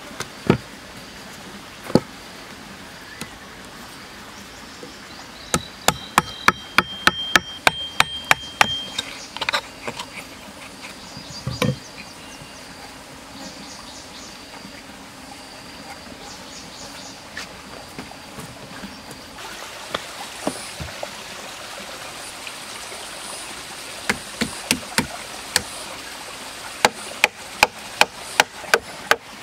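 Sharp wooden knocks in quick runs of about three a second, from a steel chisel being driven into a log: one run a few seconds in and another near the end. Steady high insect buzzing runs underneath.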